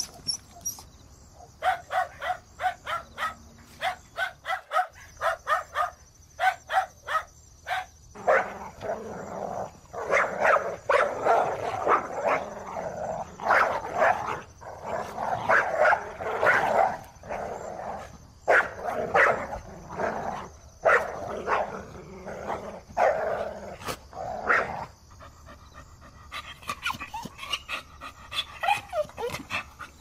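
Dog barking: a fast run of short, sharp barks, then from about eight seconds in denser, louder barking in rapid volleys, which thins out near the end into a few faint yelps.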